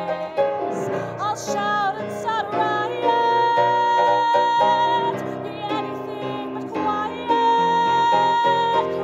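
A woman singing a musical-theatre song over instrumental accompaniment. Her voice wavers with vibrato for the first couple of seconds, then holds long notes.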